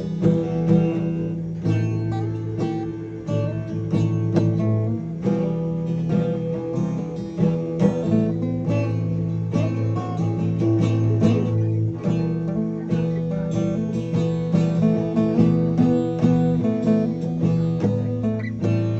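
Acoustic guitar strummed in repeated chords, with the chord changing every few seconds.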